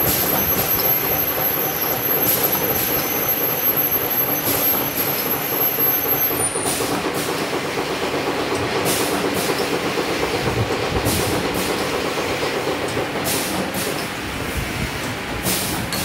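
Servo coil cut-to-length machine running with a steady mechanical clatter and hum. In the second half its pneumatic cutter strokes come as pairs of short sharp clacks about every two seconds. A thin high whine in the first half stops about six seconds in.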